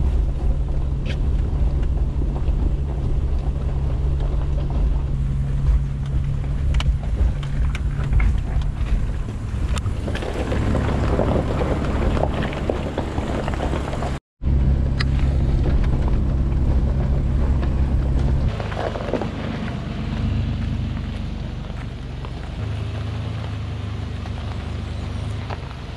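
Toyota Land Cruiser FJ80's straight-six engine running at low revs as the truck crawls down a rough dirt track in four-wheel-drive low range; the engine note steps up and down a few times. Clattering and crunching from the body and tyres over rough ground is heard about halfway through, and the sound cuts out for an instant just after.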